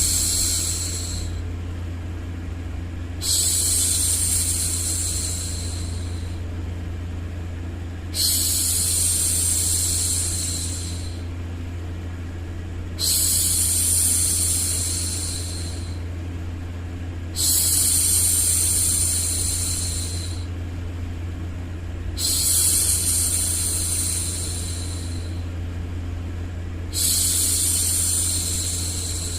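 A woman's voice shushing "shhh" for a baby, repeated about every four and a half seconds, each shush starting suddenly and fading over two seconds or so. Beneath it runs a steady low white-noise hum.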